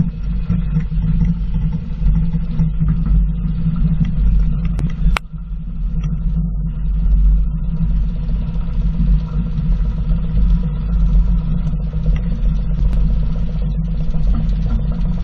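Steady low rumble of a roller coaster running, with a faint steady hum above it and one sharp click about five seconds in.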